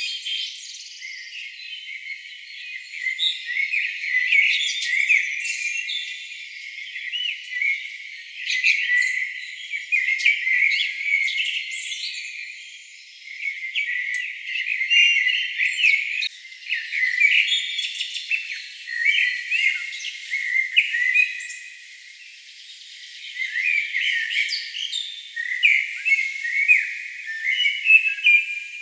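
Birdsong: several birds chirping and singing at once in a dense, continuous chorus of short whistled phrases that swell and ebb in waves. It sounds thin, with no low sounds at all.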